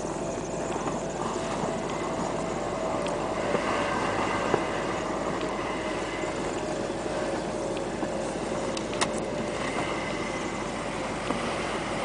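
Pickup truck engines running steadily while the trucks drive through deep snow, with a few sharp clicks about a third of the way in and again past the middle.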